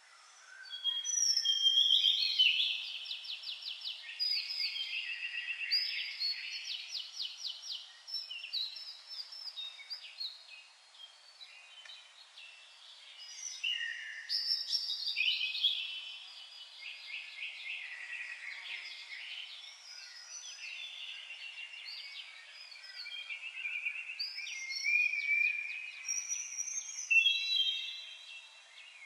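Songbird singing a long, varied song of rapid trills and warbling notes, with a couple of short lulls.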